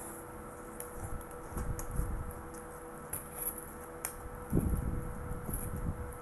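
Someone eating right at the microphone: two spells of chewing, with a few light clicks and crinkles of food paper being handled.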